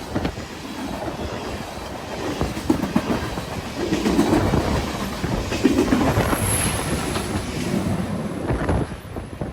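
BNSF freight train's cars rolling past, wheels clicking and clattering over the rails; the sound drops away sharply near the end as the train passes.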